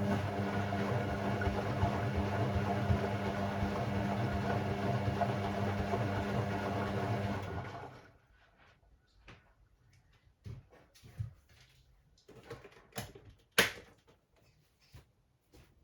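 Hoover Sportswear 1300 (AI130) washing machine running on its Delicate 15 cycle: a steady hum with hiss that cuts off about eight seconds in, followed by scattered light clicks and knocks, the loudest a single sharp knock near the end.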